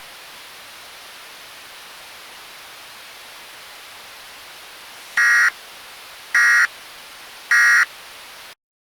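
Steady static hiss of a mock Emergency Alert System broadcast, with three short buzzy electronic beeps about a second apart in the second half. The sound then cuts off suddenly to dead silence.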